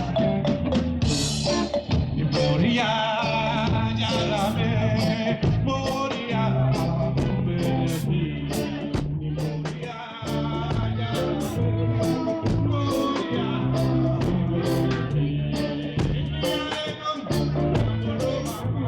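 Live band music with singing, guitar, a steady bass line and drums, recorded from the audience with rough, distorted sound.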